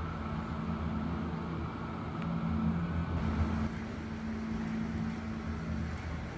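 Model trains running on a layout: a steady low hum and rumble of their motors and wheels rolling on the track.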